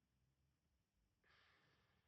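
Near silence, then a little over a second in a faint breath drawn in, ahead of the next line of speech.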